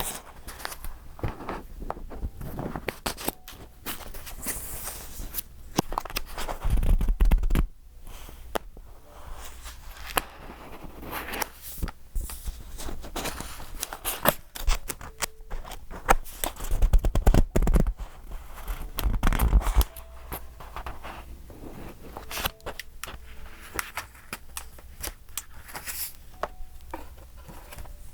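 Pages of a thick, collaged paper journal being turned one after another: paper rustling and crinkling with irregular crisp ticks and scrapes, and a few louder flutters as heavier pages fall over.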